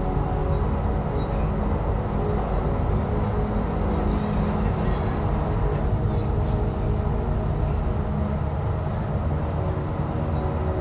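Passenger train running past at close range with a steady low rumble.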